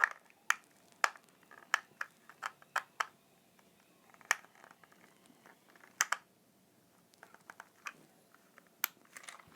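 Scattered sharp plastic clicks and taps from a toy RC car's plastic steering-wheel remote being handled while its battery compartment is checked, several in quick succession early and a few single ones later.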